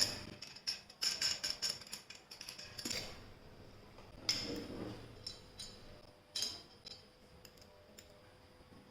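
Light metallic clicks and clinks of spray gun parts being handled and fitted together, dense at first, then thinning to a few single clicks.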